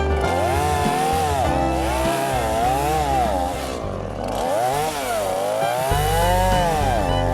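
Stihl MS 170 two-stroke chainsaw running, its pitch rising and falling again and again as it is throttled up and pulled down in the cut, with background music underneath.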